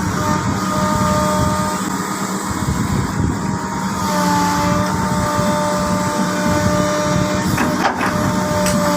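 Excavator's diesel engine running steadily under load, with several steady whining tones over the engine noise. Near the end come a few sharp knocks as the bucket begins pounding the ground.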